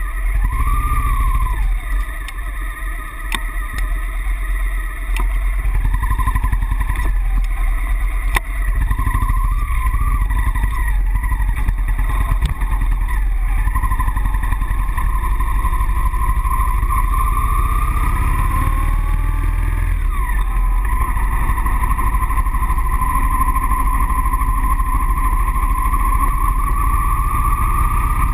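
Motorcycle engine running as the bike pulls away and rides along a street, picked up close by a handlebar-mounted camera. The low engine note grows louder about five seconds in as the bike gets under way, and its pitch rises and falls with the throttle.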